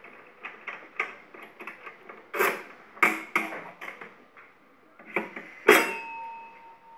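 Stainless-steel parts of a filling machine clinking and knocking as it is taken apart by hand. Near the end comes a louder metallic clang that rings on for about a second.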